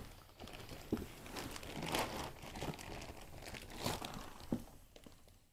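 Plastic wrapping of a vacuum-sealed mattress crinkling and rustling in irregular bursts as it is pulled and handled, fading near the end.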